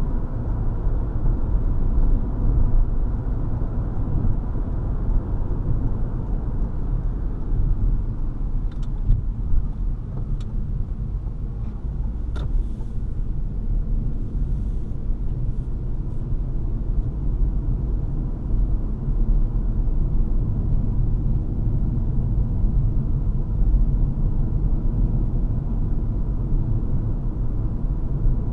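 Cabin noise of a 2018 Toyota C-HR crossover driving at road speed: a steady low rumble of tyres, road and engine. A few faint light clicks come around the middle.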